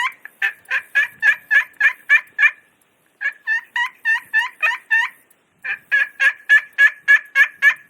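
Spur Master friction turkey call worked with a striker marble, sounding hen-turkey yelps: three quick runs of two-toned notes, about four a second, with brief pauses between the runs.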